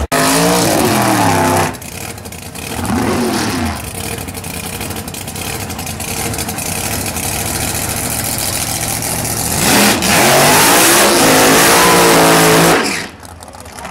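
Drag racing cars' engines revving hard, the pitch rising and falling in a couple of blips, then a long, loud burst of high revs during a smoky tyre burnout that cuts off suddenly near the end.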